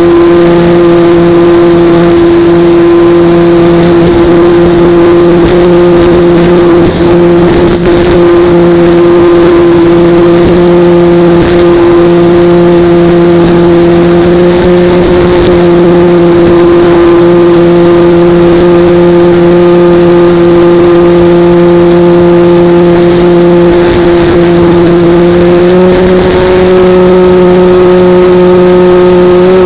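RC model airplane's motor and propeller running at a steady, loud drone, heard up close from on board the plane, with air rushing over the microphone. Near the end the pitch steps up slightly as the throttle is advanced.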